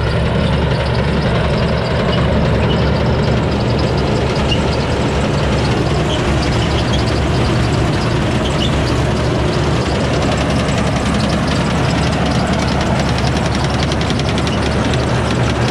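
Tractor engine running steadily under load, heard close up.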